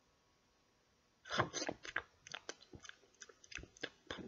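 Near silence for about a second, then a quick, irregular run of crunching clicks.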